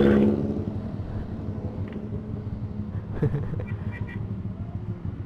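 Motorcycle engine running steadily under way, a low rumble with road noise. A louder engine sound dies away in the first half second.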